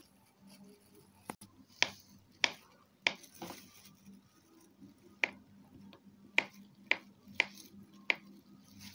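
Kitchen knife slicing a banana into rounds on a plastic cutting board, the blade tapping the board with a sharp click at each cut, about eight cuts at uneven intervals.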